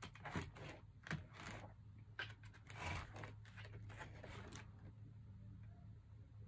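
Plastic fork scraping and clicking against a foam takeout container while picking up fries and salad, a quick run of scratchy strokes that dies down about four and a half seconds in, over a steady low hum.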